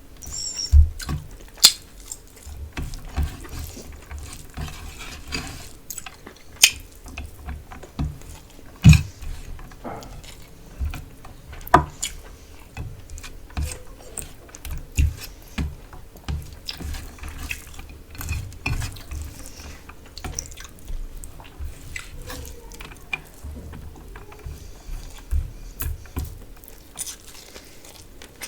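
Close-up eating sounds of a meal of rice with fish curry: wet mixing, biting and chewing, with irregular sharp clicks and taps throughout.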